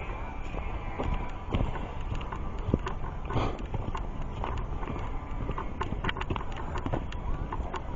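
Footsteps of hikers walking on a dirt forest trail: irregular crunching steps over a steady low rumble, with a brief rustle about three and a half seconds in.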